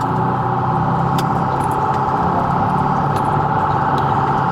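Police car siren sounding continuously in a rapid warble, heard from inside the patrol car during a pursuit, over the cruiser's engine running hard.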